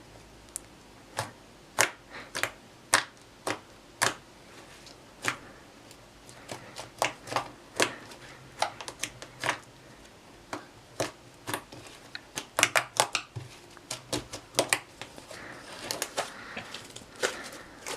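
Glitter slime being squeezed and poked by hand, giving irregular sharp clicking pops, several a second, that crowd together into denser crackling near the end.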